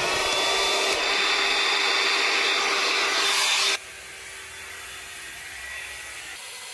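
Hand-held hair dryer running steadily: a rush of air with a constant motor tone. About four seconds in, the sound drops abruptly to a much quieter level and carries on.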